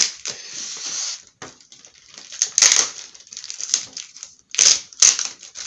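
Inflatable air-column plastic packaging crinkling and crackling as it is handled and slit open with a utility knife: a sharp click at the start, then rustling with several short, loud crackles.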